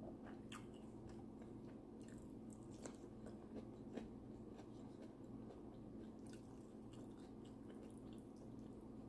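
Faint chewing with scattered small soft clicks as fingers pick flesh off a whole cooked tilapia, over a steady low hum.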